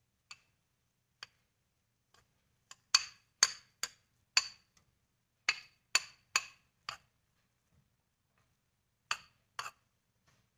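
Plastic rice paddle knocking against a porcelain rice bowl while scooping cooked rice into it: a string of sharp, irregular clicks, thickest in the middle, with two more taps near the end.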